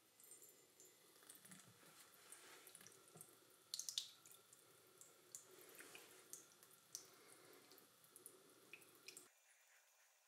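Faint, irregular dripping and small splashes of water from a bathroom faucet falling onto a steel knife blade and into the sink, loudest about four seconds in and fading out near the end.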